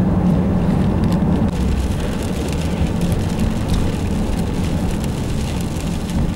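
Inside a diesel van's cabin while driving: steady engine drone with tyre and road noise, the engine note easing off about a second and a half in.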